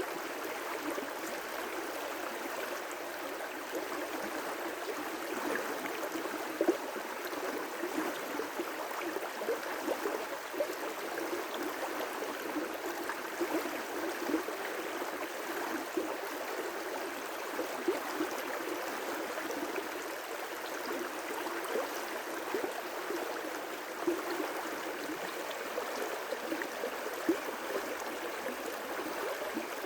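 River rapids: water rushing steadily, with a few brief louder spikes over the even rush.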